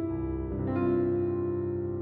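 Slow background music on a piano-like keyboard: sustained notes, with a new note struck about a third of the way in.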